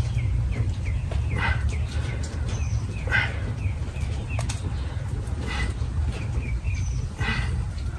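Small birds chirp repeatedly over a steady low rumble. A short whoosh comes about every two seconds, in time with a repeated resistance-band press.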